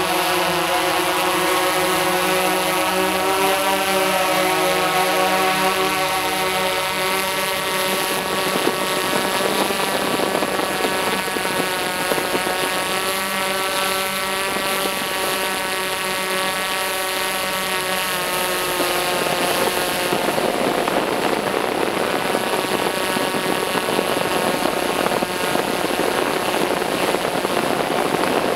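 Tarot X8 octacopter's eight motors spinning DJI 1552 15-inch propellers in flight: a steady multirotor buzz of several close-spaced tones, which turns into a rougher, more even hum about two-thirds of the way through.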